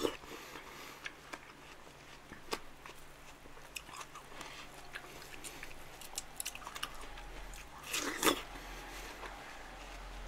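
Close-miked biting and chewing of juicy watermelon slices, with scattered soft wet clicks. A louder bite comes about eight seconds in.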